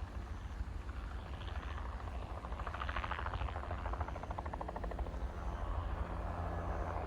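Crop-spraying helicopter flying over, with a steady low rumble. Its rotor chop swells to a peak about three seconds in, then fades.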